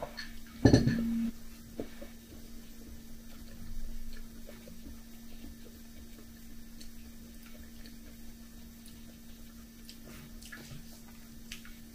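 A ceramic mug set down on the table with a single thud about a second in. After that a spoon moves in the mug with faint clinks and liquid sounds, a few of them near the end.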